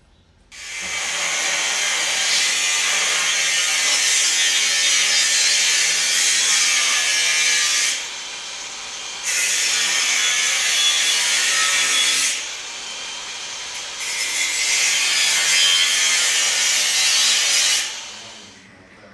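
Power tool running under load in three long runs, about seven, three and four seconds, with short quieter pauses between.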